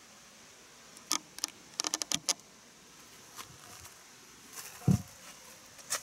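Light clicks and rattles, with a quick run of them about two seconds in and one dull thump near five seconds, over a faint steady high hiss.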